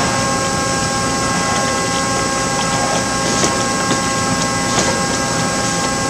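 Acasi Trucap-Waterfall inline spindle capping machine running: a steady mechanical whir with several constant whining tones from its motors and belts, and a few light clicks along the way.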